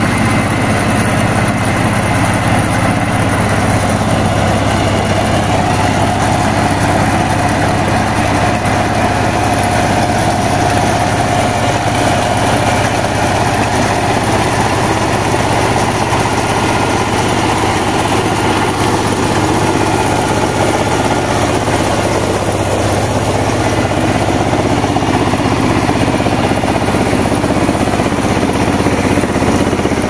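Mini combine harvester running steadily as it cuts and threshes ripe rice: a loud, constant engine drone mixed with the clatter of its cutter and threshing drum. A faint whine rises out of it for several seconds partway through.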